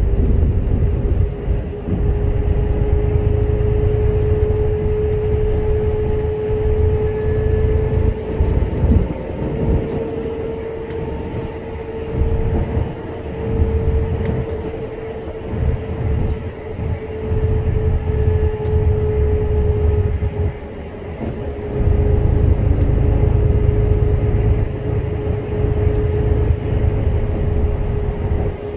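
Road noise of a vehicle travelling at expressway speed, heard from inside: a heavy low rumble of tyres and wind that swells and eases, with a steady hum that drifts slightly in pitch.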